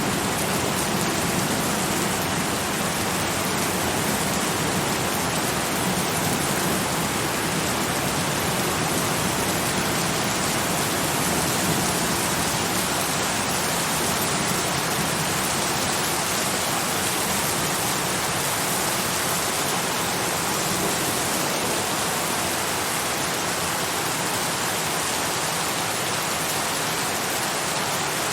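Steady, heavy rain falling, an even hiss of many drops with no distinct splashes or thunder.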